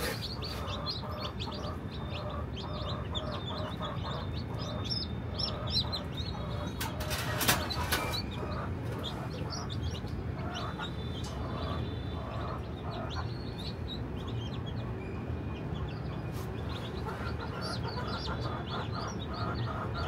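A basket of newly hatched Egyptian chicks peeping continuously in many short, high, rising chirps, with lower clucking notes among them. A brief rustle about seven seconds in stands out over a steady low hum.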